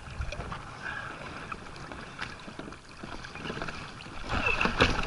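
Kayak paddle strokes splashing in choppy sea water, with water slapping the plastic hull and wind on the microphone; the splashing gets louder about four seconds in.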